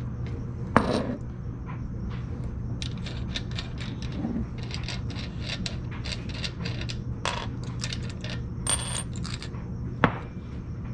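Small metal parts clinking and tapping in quick, irregular clicks as suspension parts are handled, with three louder metallic knocks: about a second in, near nine seconds (ringing briefly), and near the end. A steady low hum runs underneath.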